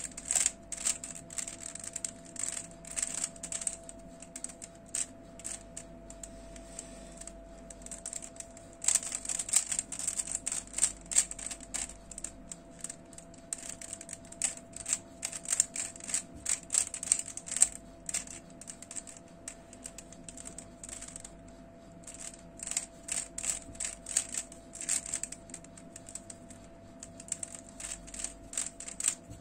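Plastic stickerless 3x3 Rubik's cube being turned by hand: quick clicks and clacks as the layers turn and snap into line, in fast flurries with a couple of short pauses.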